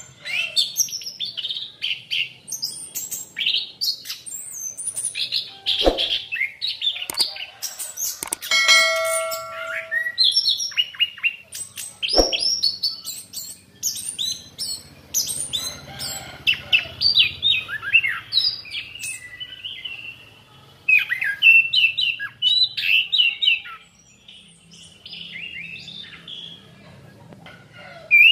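Chestnut-capped thrush (anis kembang) singing a fast, varied run of short chirps and trills with hardly a pause. Two sharp knocks come through, about six and twelve seconds in.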